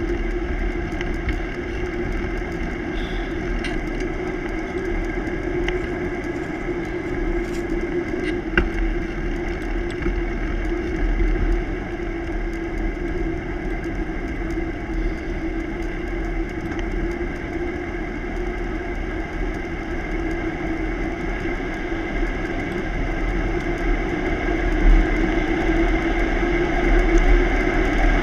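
Steady road noise of a bicycle rolling on pavement: tyre hum on the asphalt with a low wind rumble on the wheel-mounted microphone, a few faint clicks around eight seconds in, growing a little louder near the end.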